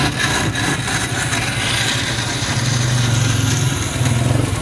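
Electric countertop blender running, blending a green mint drink with ice into a smooth froth. Its motor gives a steady hum with a grinding rush that brightens from about two seconds in.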